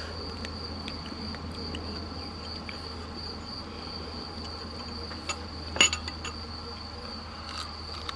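Insects trilling steadily in one unbroken high pitch, with small clicks from handling food and dishes at the table and one sharp click just before six seconds in.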